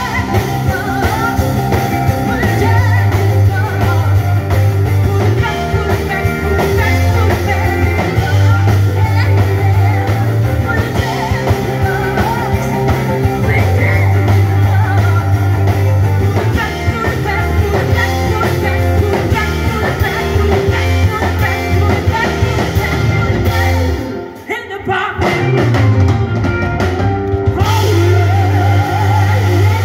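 Live blues-rock band playing, with a female lead vocal over electric guitar, drum kit, keyboards and bass. About three-quarters of the way through, the band cuts out for about a second and then comes back in.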